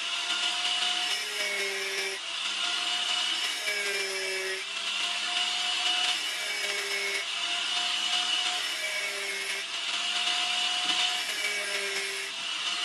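Handheld angle grinder with a thin cut-off disc cutting notches into the spine of a bearing-steel machete blade. The motor whine steps down in pitch and back up again and again, as the disc bites into the steel and eases off, over a steady grinding hiss.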